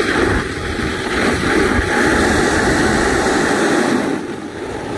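Snowboard sliding over groomed snow, a steady scraping rush mixed with wind buffeting the microphone; it eases briefly near the end.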